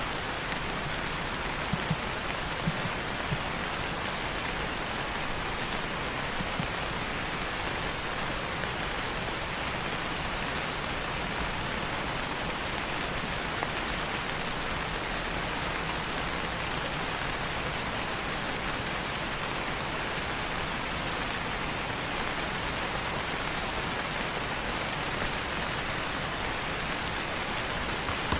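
Steady rain falling on leaves, an even hiss with a few louder individual drops.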